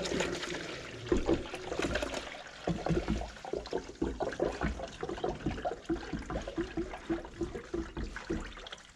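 Antifreeze being poured into a funnel on a truck's coolant reservoir, a steady trickle broken by a run of short glugs.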